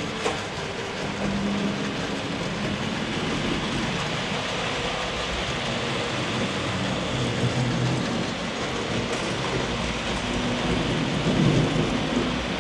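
HO scale model trains running on the layout: a steady rushing rumble of metal wheels rolling on track, with low humming tones that come and go and a slight swell near the end.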